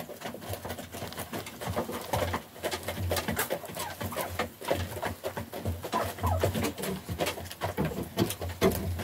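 A flock of hens pecking feed from a wooden trough, their beaks tapping in quick, irregular clicks, with repeated short, low clucks throughout.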